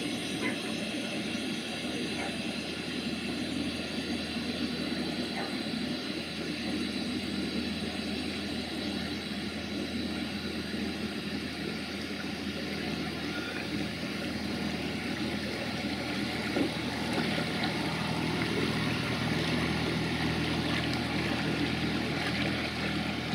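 Boat engine running steadily, an even drone growing a little louder in the second half.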